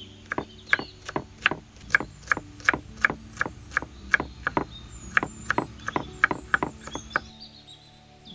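Kitchen knife chopping winged beans on a wooden chopping board, in steady strokes about two and a half a second that stop about seven seconds in.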